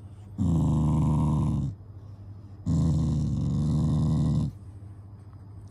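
Black Shiba Inu growling twice, two long low rattling growls, as a hand strokes its head. The owners say this growl is an affectionate habit, not anger.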